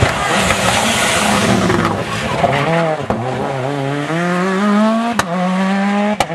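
Rally car at full throttle: a loud close pass, then the engine pulls away, its pitch climbing and dropping back at each upshift several times.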